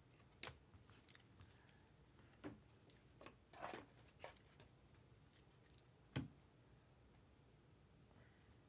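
Faint, scattered clicks and swishes of Topps Chrome trading cards being handled and flipped through, about half a dozen in all, the sharpest a click about six seconds in.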